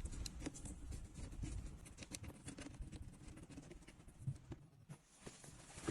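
Faint, irregular small clicks and scratching of hand work on plastic car interior trim as a screw is refitted.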